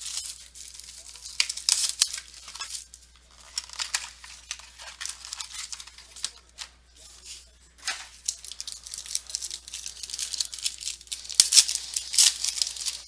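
Plastic wrapping being torn and crinkled as a sealed trading-card box is opened: irregular, papery crackling that comes and goes, loudest in a burst near the end.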